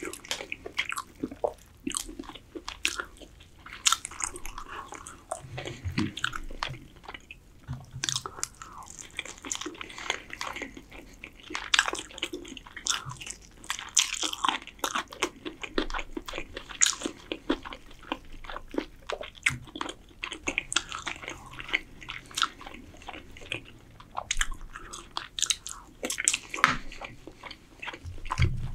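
Close-miked chewing and biting of roast chicken: a steady run of many short, irregular mouth clicks.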